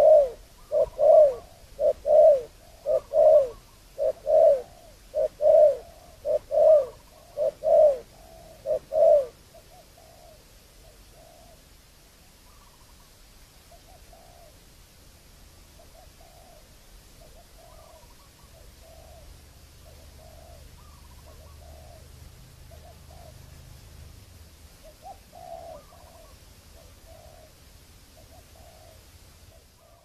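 Spotted dove cooing: a rapid run of loud, low coos, about two a second, for roughly the first nine seconds, then fainter cooing at about one a second.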